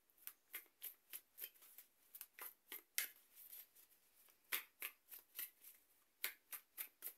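Tarot cards being shuffled by hand: a string of quiet, dry card slaps at about three a second.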